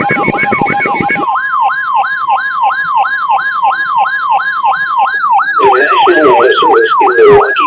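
Electronic siren in a fast yelp, its pitch sweeping down and back up about three times a second. For several seconds a steady alert tone near 1 kHz sounds under it, typical of the weather-radio warning alarm. Near the end another sound, like a voice, comes in beneath the siren.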